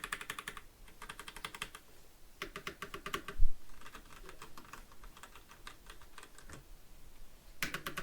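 Razer BlackWidow Lite mechanical keyboard with Razer Orange switches being typed on hard, the keys forced down in quick bursts of keystrokes with short pauses between them: a very quiet clatter. A single low thump comes about three and a half seconds in.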